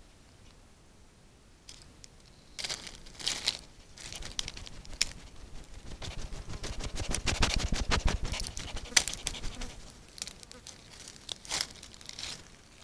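Scratchy rustling and crinkling as an agouti moves and brushes its fur against a camera trap in dry leaf litter. It comes in short bursts that thicken into a dense run of rapid low bumps in the middle, then thin out again near the end.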